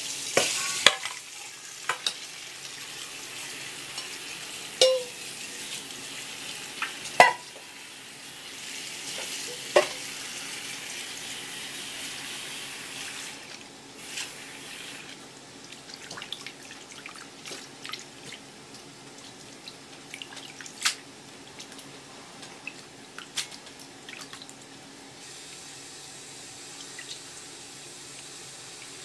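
Water running and splashing in a stainless steel bowl as boiled clam meat is rinsed, with a few sharp knocks of the metal bowl. About 13 seconds in, the running water eases off, and hands swish the clam meat through the water with small splashes and clicks.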